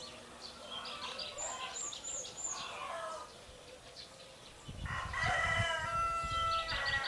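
A rooster crows once, a long call of about two seconds that starts near the end. Earlier, a small bird gives four quick high chirps.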